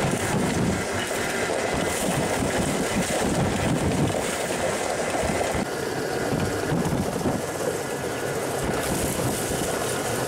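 Homemade electric rail speeder rolling along worn, rusty rails, its wheels clattering and rumbling steadily over the track.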